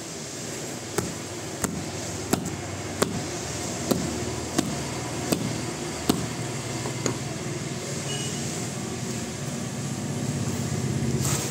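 A coconut in its husk struck again and again with a hand-held object: about nine sharp knocks, roughly one every three-quarters of a second, stopping about seven seconds in. A steady low hum runs underneath and grows louder near the end.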